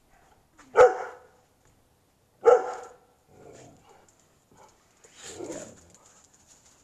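A dog barking: two loud, sharp barks well under two seconds apart, then a softer, longer bark about five seconds in.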